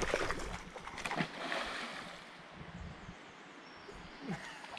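River current running steadily, with a louder rush of noise at the very start and a short click a little over a second in.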